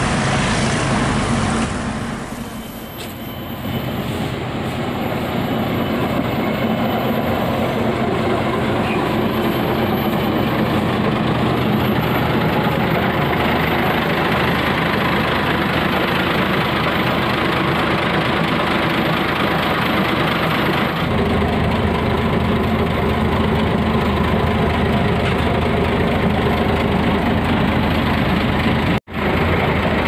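Heavy diesel engine running steadily at idle. The sound changes abruptly about 3 s in and again about 21 s in, and drops out briefly near the end.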